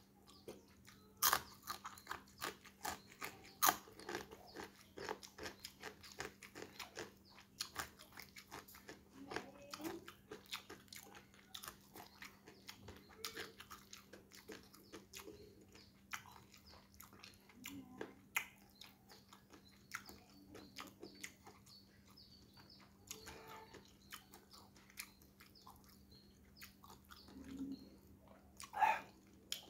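Close-up chewing of crispy fried gereh eyek (salted dried fish): quick crunches and mouth clicks, densest in the first half and thinning out after, with a louder crunch near the end. A faint steady hum runs underneath.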